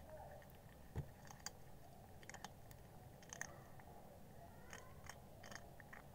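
A calico cat chewing crunchy grilled-corn-flavoured chips: faint, irregular crunches, the loudest about a second in, with a cluster of quicker ones near the end.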